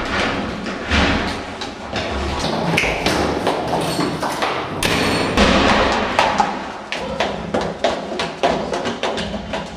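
Film-score music with a dense texture, punctuated throughout by sharp percussive thuds and taps.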